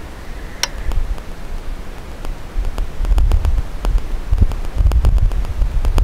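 Wind buffeting a wildlife trail camera's microphone: an uneven low rumble that grows stronger about halfway through, with scattered faint clicks and one sharper click shortly after the start.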